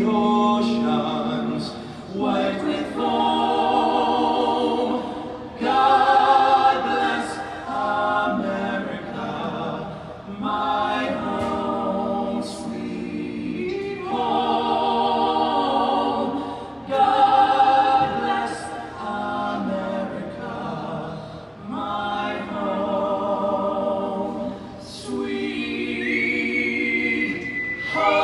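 Three uniformed military vocalists singing a slow song in close harmony without accompaniment, amplified over the ballpark's public address system, in long held phrases with vibrato. A thin whistle rises and falls over the singing near the end.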